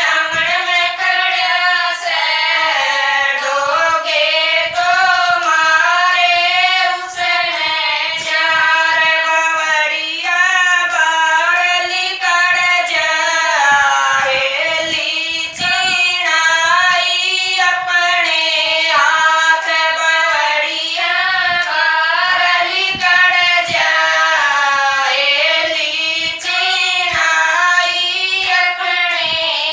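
A group of women singing a Haryanvi folk bhajan together in one continuous melodic line, with short light taps underneath.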